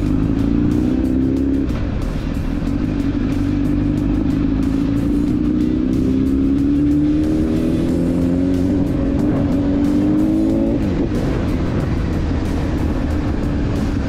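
Honda CBR1000RR Fireblade's inline-four engine on the move. Its pitch drops about a second and a half in, then rises steadily for several seconds as it pulls through a gear, and falls off sharply about three-quarters of the way through. Rock music plays underneath.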